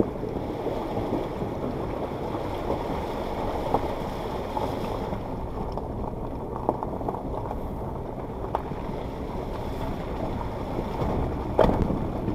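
Suzuki Jimny fording a shallow river at walking pace, then rolling out onto the stony riverbed. There is a steady rumble of water and tyres on rocks, with a few sharp knocks of stones against the vehicle, the loudest near the end.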